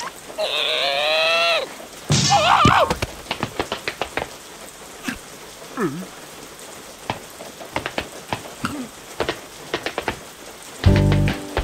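Cartoon larva characters' wordless vocalizing (a long wavering whine, then a short chattering cry) over steady rain with scattered drips and plinks. Near the end a loud low pulsing sound comes in.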